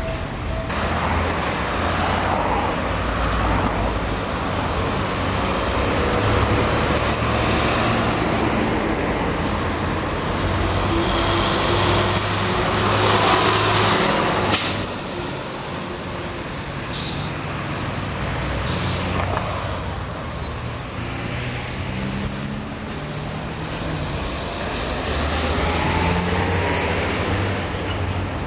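Diesel lorries running through busy city street traffic, their engines swelling louder as each one passes close by. A few short high-pitched squeaks come in the middle.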